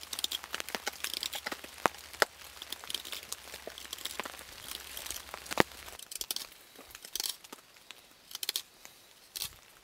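Crook knife cutting out the bowl of a wooden spoon: short scraping, crackling cuts through the wood with many sharp ticks, falling into separate strokes in the second half.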